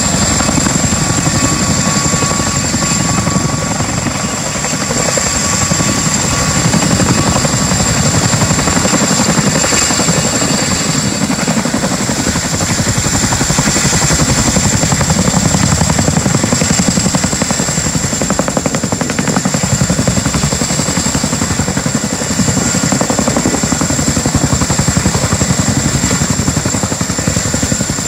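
Two Boeing CH-47 Chinook tandem-rotor helicopters flying low close by: loud, steady, rapid beating of the rotor blades with a steady high whine running above it.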